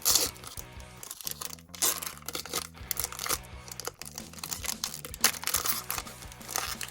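A foil Pokémon booster pack wrapper crinkling and tearing as it is opened, with a loud rip at the start and irregular crinkles after. Background music plays under it.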